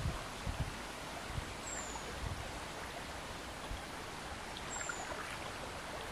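Steady rush of a river current flowing over shallows and around snags. Two brief high chirps sound a few seconds apart.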